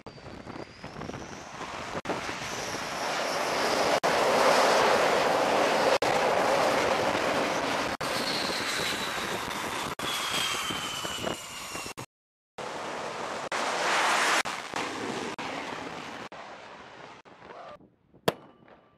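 An F/A-18 fighter jet's twin engines swelling to a loud peak as it lands on the carrier deck, with wind on the microphone and a whine that falls in pitch as the engines wind down. After a break, more jet noise fades out, and near the end a single sharp shot from a line-throwing rifle.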